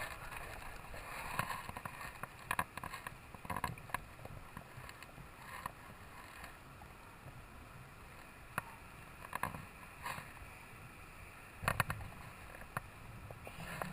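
Scattered faint knocks and rubbing sounds from the swing's climbing rope and harness gear as the rider hangs in the gorge, a few coming close together near the end, over a faint airy background.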